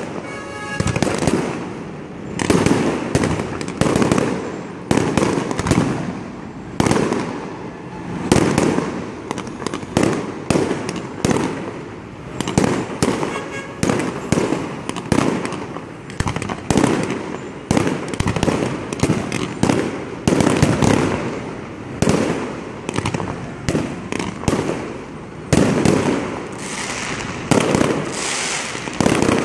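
Fireworks display: aerial shells bursting in a continuous run, a loud bang every second or so with many smaller pops between.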